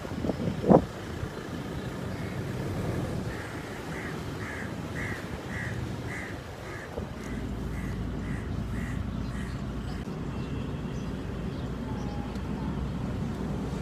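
Low rumble of vehicles with wind on the phone's microphone, a sharp knock less than a second in, and a run of about a dozen evenly spaced short high tones, a little under two a second, rising and fading away in the middle.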